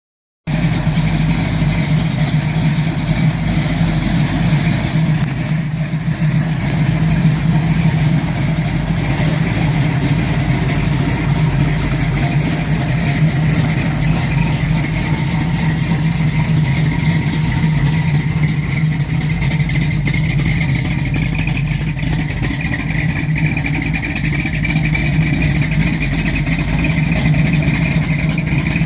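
A 1971 Camaro SS's 402 big-block V8 idling, with a rough idle.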